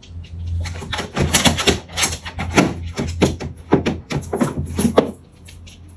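Small dog rummaging in a plastic drawer for its shoes: a quick, irregular run of rustling, clattering and clicking that lasts about four seconds.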